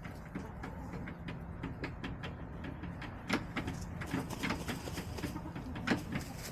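A backyard flock of hens softly clucking while they peck and scratch at straw and dirt, with many quick sharp taps from their beaks and feet.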